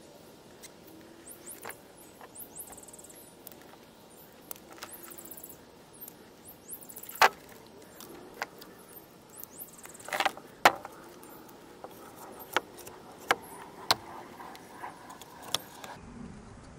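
Scattered clicks, taps and knocks from hands handling green fuse and fitting it into firework mortar tubes standing in a plastic truck bed. The loudest knocks come about seven seconds in and at about ten seconds in.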